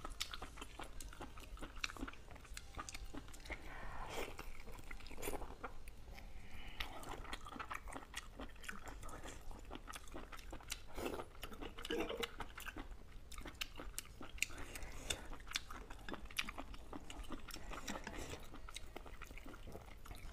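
Chewing and biting into cooked octopus, with many short clicks of the mouth throughout.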